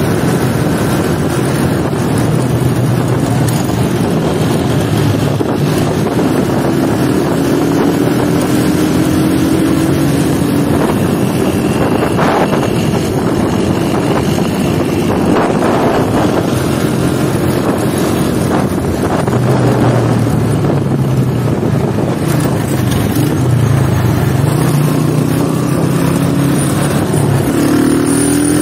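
Old Honda motorcycle's engine running steadily while riding through city traffic, with wind buffeting the microphone; the engine note climbs near the end as it speeds up.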